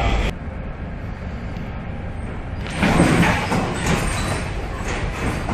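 Storm wind and heavy sea heard from aboard a container ship, a steady low rumbling rush. About three seconds in it grows much louder, as a wave breaks over the bow and throws up spray, then eases.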